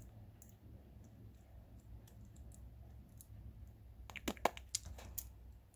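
Small plastic model-kit parts clicking and tapping as they are handled and tried in place, with a quick cluster of clicks about four seconds in, over a faint steady low hum.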